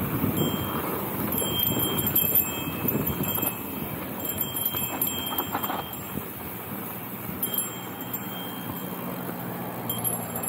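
Mountain bike being ridden on a dirt trail: tyre and wind noise, with a thin high ringing tone that comes and goes several times.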